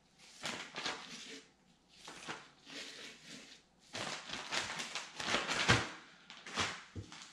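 Clear plastic bag crinkling and rustling in bursts as raw chicken wings are dropped into it and the bag is handled. The loudest burst comes about five and a half seconds in.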